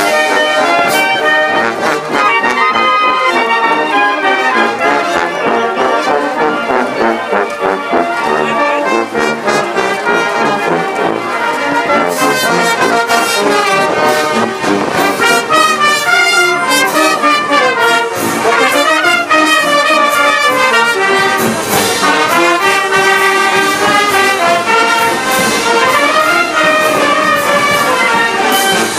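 Brass band of trumpets, baritone horns and a tuba playing dance music while marching in procession. Loud and continuous, with the melody carried by the horns.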